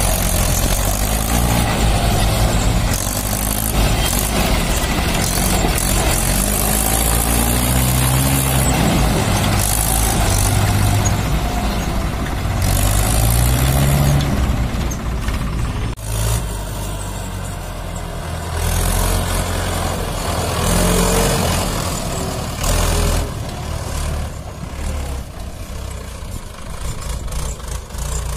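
Mahindra 585 DI tractor's diesel engine running under load, pulling a fully loaded trolley, its pitch rising and falling as it is revved.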